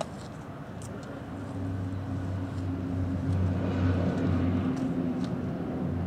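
Old HOR Siro-Drone rotating siren, 1940s vintage, sounding a low, steady tone as its rotor keeps spinning. The tone swells louder from about a second and a half in, peaks around four seconds and eases off slightly.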